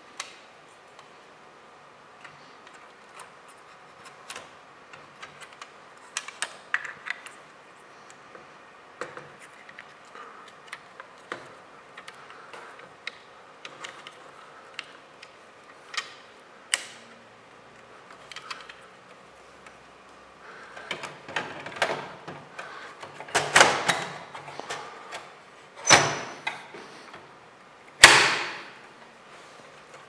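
Scattered plastic and metal clicks, knocks and scrapes of hands working inside a Dell desktop computer case as cables are handled and a hard drive in its plastic caddy is fitted into the drive bay. The sounds grow denser and louder about two-thirds of the way in, with three loudest knocks near the end.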